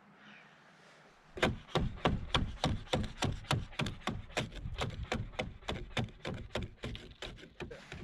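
Ice being scraped off a van's rooftop solar panel with quick, sharp strokes, about four a second. They start about a second and a half in and slowly grow fainter.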